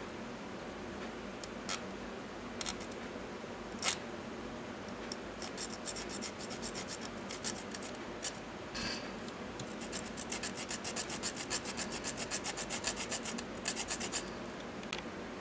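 Small fine-toothed hobby saw cutting through the base of a die-cast toy truck. It starts with a few separate strokes, then settles into quick, steady rasping strokes of about five a second, which stop about a second before the end.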